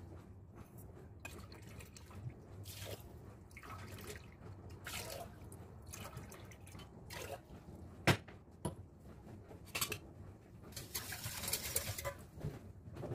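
Water poured from a drinking glass into a stainless steel pot of sugar, in several pours, as the base of a sugar syrup. A sharp clink about eight seconds in, with a few lighter knocks of glass and utensils against the pot.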